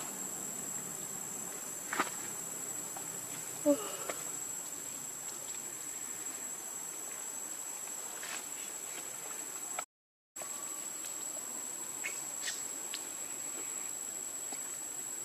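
Steady high-pitched insect drone over a background hiss, with a few faint clicks and a short low chirp about four seconds in. The sound drops out completely for about half a second around ten seconds in.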